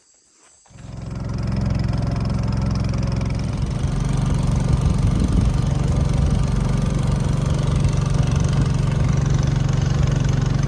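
A motor engine running at a steady speed, loud and low-pitched, coming in about a second in.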